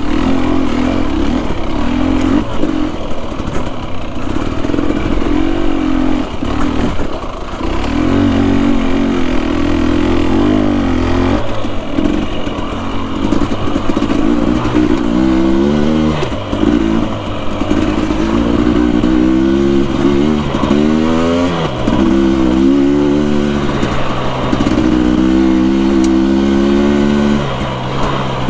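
2021 Husqvarna TE250i's two-stroke single-cylinder engine being ridden hard, its pitch climbing and dropping over and over with the throttle. There are sharp rev rises about halfway through and again about three quarters of the way in.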